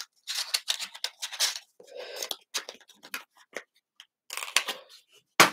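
Hands handling small packaging: rustling, crinkling and light clicks of plastic and cardboard, with one sharp knock near the end.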